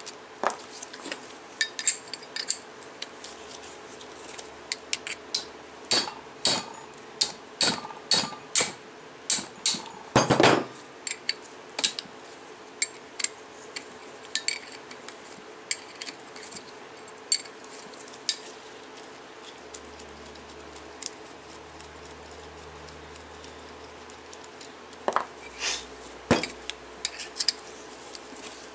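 Open-end wrench clinking against the bolts and ring gear of a Suzuki Samurai differential carrier as the carrier's cover bolts are worked loose: a run of sharp metal clinks and clanks, with one longer clank about ten seconds in, fewer clinks in the middle stretch, and a fresh cluster near the end.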